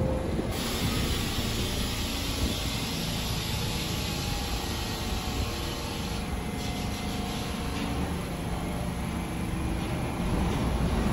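New York City subway train noise in the station: a steady rumble with hiss, growing louder near the end.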